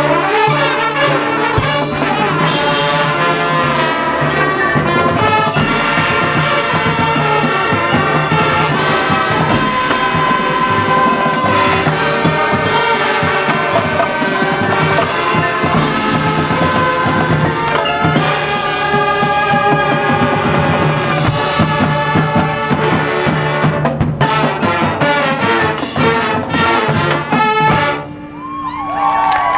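School band music, the brass section of trombones and trumpets carrying the tune over drums. It stops on a final cutoff about 28 seconds in, and the crowd starts cheering right at the end.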